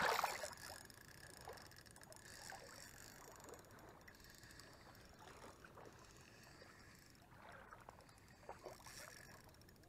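A Shimano Sahara spinning reel being cranked to bring in a hooked small bass, its turning heard only as faint soft ticks and scrapes over light water lapping. A brief noisy burst comes right at the start.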